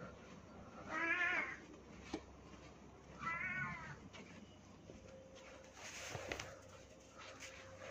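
Domestic cat meowing twice, about two seconds apart, each meow rising then falling in pitch. A short click falls between the two meows, and a faint rustle comes about six seconds in.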